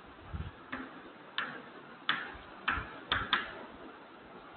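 Chalk tapping and clicking against a blackboard as it is written with: about six short, sharp taps at uneven intervals, two of them in quick succession a little after three seconds in.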